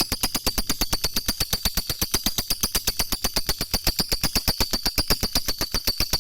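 Lovebird giving its long ngekek call: a rapid, even chattering trill of high notes, about ten a second, that stops near the end.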